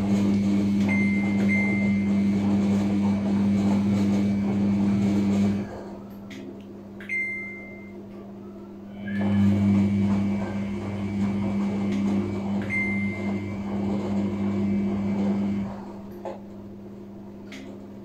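Samsung front-loading washing machine in its wash cycle: the drum motor hums steadily as the drum tumbles the wet laundry for about six seconds, stops for about three seconds, then runs again for about six seconds and stops near the end. A few brief high chirps and light clicks come with the runs and pauses.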